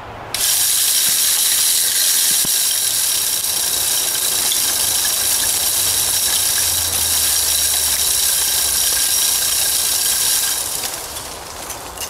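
12-volt battery-powered automatic spinner feeder (Power Feeder round model) running a 10-second test spin, its motor-driven propeller flinging sunflower seeds out. It gives a steady high-pitched whine with hiss that starts suddenly and winds down about a second before the end.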